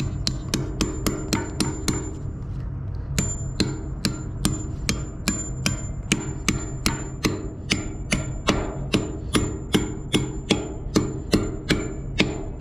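Hammer repeatedly striking steel, about two to three blows a second with a short pause about two seconds in, each blow leaving a brief metallic ring: concrete wedge anchors being driven into drilled holes.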